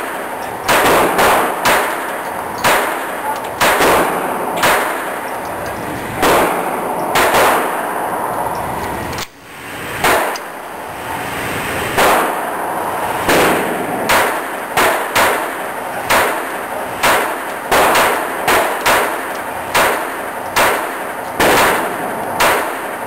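Sig Sauer Mosquito .22 LR pistol firing shot after shot at a steady pace, about one a second, with a brief break about nine seconds in.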